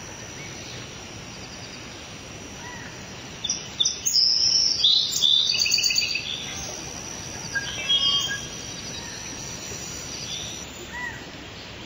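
Birds singing and calling outdoors: a run of quick high chirps and trills from about three and a half to eight and a half seconds in, with scattered single calls before and after, over a steady background hiss and a thin high steady tone that stops shortly before the end.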